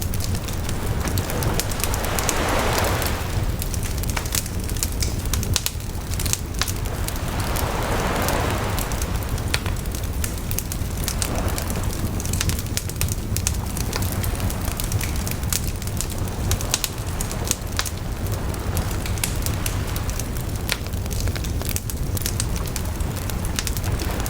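Campfire crackling with dense, irregular pops over a low rumble, while waves wash up on a shore, swelling and fading three times in the first half and again near the end.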